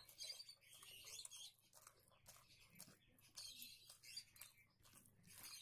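Faint eating sounds of rice and egg masala curry being mixed by hand on a plate and eaten, heard as a run of soft, irregular clicks.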